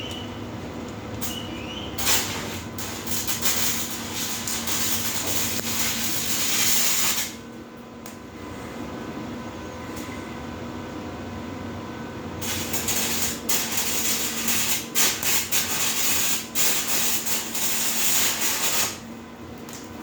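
Electric arc welding: the arc crackles and hisses in two runs of about five to six seconds each, with a pause in between, over a faint steady hum.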